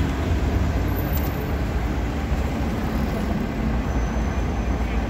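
Steady low rumble of city-street background noise, with no distinct event standing out.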